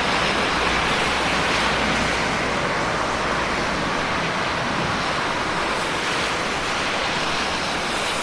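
Steady heavy rain, an even hiss with no single drops standing out.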